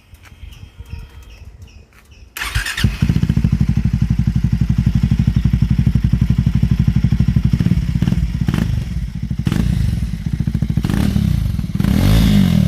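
Triumph Speed 400's single-cylinder engine through an AEW Edge slip-on exhaust, starting about two seconds in and settling into an even, bass-rich idle pulse, with a few short throttle blips and a rev near the end.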